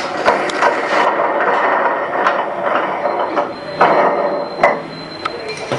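The plastic strap-roll disc of a strapping machine being handled and turned on its hub: continuous clattering with many sharp clicks. A thin steady high tone joins about halfway through.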